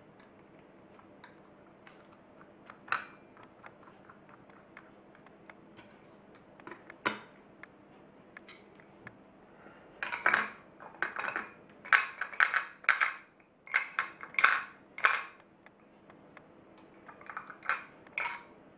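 Scattered light clicks of a small screwdriver working a screw in the fuse block's terminal, then, about ten seconds in, a run of sharp clacks and knocks as the black plastic fuse-block parts are handled and set against each other, with a few more clacks near the end.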